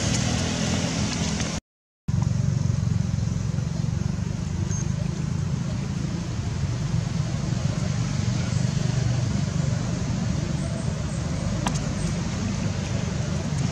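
Steady low background rumble, broken by a brief silent gap about two seconds in.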